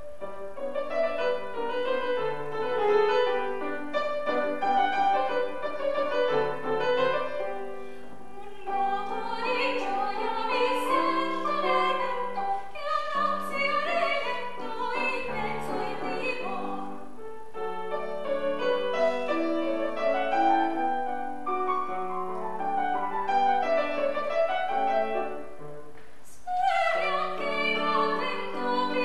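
Classical soprano singing with grand piano accompaniment, the music breaking off briefly twice between phrases.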